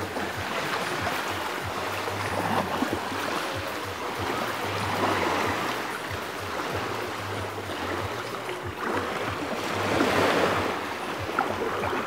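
Ocean surf washing on a beach: a steady hiss that swells and eases back every few seconds as waves come in.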